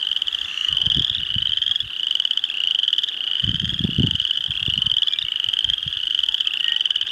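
A dense chorus of frogs trilling in the marsh: many overlapping, slightly rising trills, each about a second long, one after another without a break. Low rumbles come in about a second in and again, loudest, around four seconds in.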